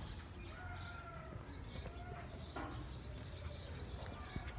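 Birds chirping repeatedly over a steady low background hum.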